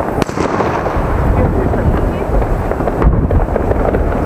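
Steady low rumble of many distant New Year's fireworks going off, with a single sharp crack just after the start.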